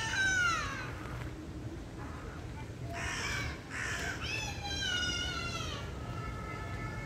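A large bird calling several times: a falling call at the start, two short rough calls a few seconds in, then a longer held call.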